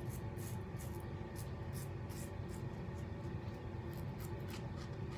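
Rex Ambassador double-edge safety razor scraping faintly through lather and stubble on the chin in short, quick strokes, about three a second. This is a going-over pass to get the shave baby-smooth.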